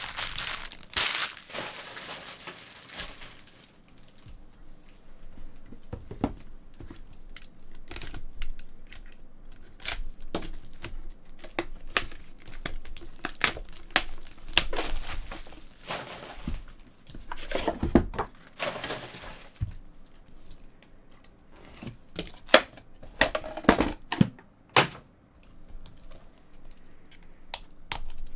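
Clear plastic wrapper crinkling and tearing as it is pulled off a trading-card box, in irregular bursts, with scattered clicks and taps from handling the boxes.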